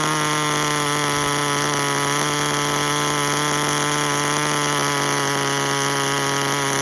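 Tamiya TGS-R's small nitro glow engine running steadily at an almost constant pitch, with no revving.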